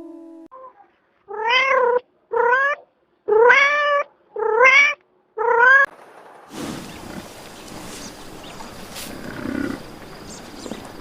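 A cat meowing five times in quick succession, each call rising in pitch. After that comes a steady background hiss with no calls.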